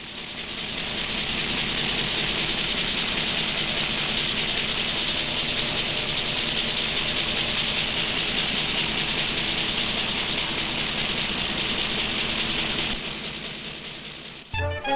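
Steady mechanical hum and hiss of a refrigeration plant keeping a block of ice frozen, used as a cartoon sound effect. It fades in over the first second or two and fades out near the end. Orchestral music then starts just before the close.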